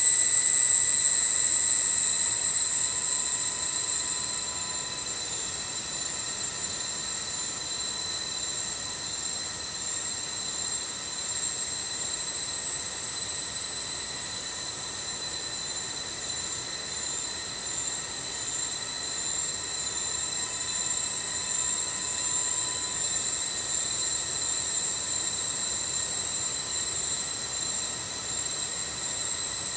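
Insects in the forest keep up a continuous high-pitched shrill drone. It is loudest at the start, eases off over the first few seconds, then holds steady.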